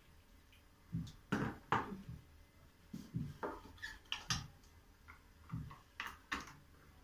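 Kitchen clatter: a metal pot set down in a plastic bowl and a plastic lid handled and pressed onto a glass pickle jar, heard as a series of short knocks and clicks in small clusters.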